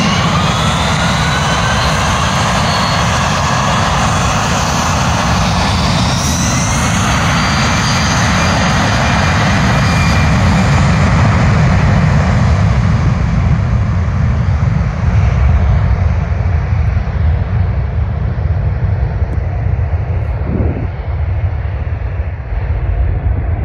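Boeing C-17A Globemaster III's four Pratt & Whitney F117 turbofans at takeoff power: whines rising in pitch over a loud roar during the takeoff roll, then a deep rumble that is strongest around the middle as the aircraft climbs away, with the high hiss fading toward the end.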